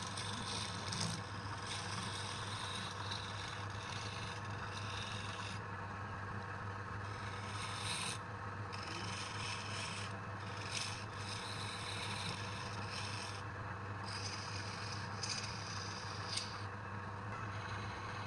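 Wood lathe running with a steady hum while a cutting tool or abrasive rubs and scrapes against the spinning wood in stop-and-start passes.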